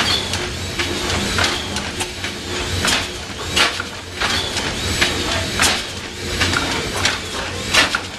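Two-cylinder natural-gas stationary engine running steadily at slow speed: a low mechanical hum with a sharp clack about every three-quarters of a second.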